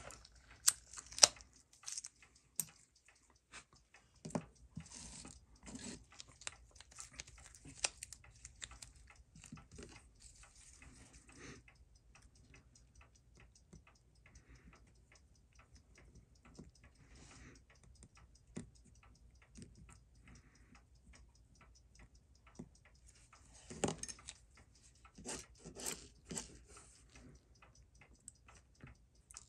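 Small sharp clicks and taps of a watchmaker's screwdriver and tweezers working on a Seiko 6139 automatic chronograph movement clamped in a metal movement holder. There is a flurry of clicks near the start and another a few seconds before the end, with sparser ticks between.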